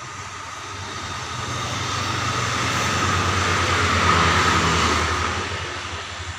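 A motor vehicle passing by: a low engine rumble and hiss swells up, is loudest about four seconds in, then fades away.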